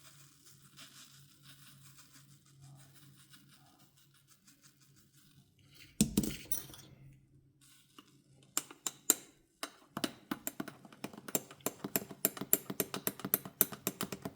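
A single knock about six seconds in, then a run of quick, light clinks and taps against a cup as chocolate powder is added to the cappuccino.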